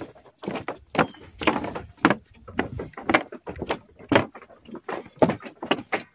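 Footsteps on a wooden plank boardwalk at a brisk walking pace: a knock of the boards underfoot about twice a second.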